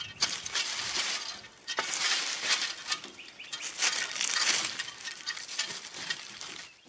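Boots crunching and shuffling through dry fallen leaves, in irregular bursts of crackling.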